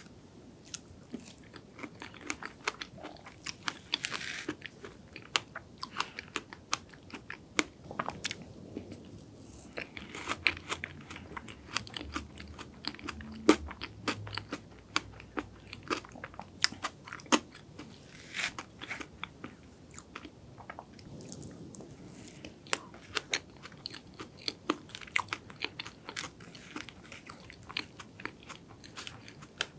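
Close-miked chewing of chocolate sand cake: an irregular run of many short, sharp mouth clicks.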